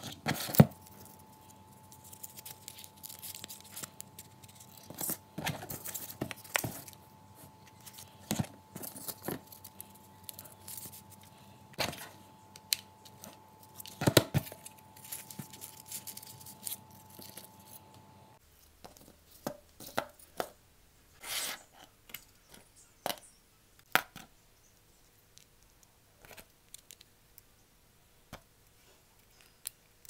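Hands handling cardboard parts: irregular rustles, scrapes and small taps as pieces are pressed together and set down. A faint steady hum runs underneath and stops about two-thirds of the way through.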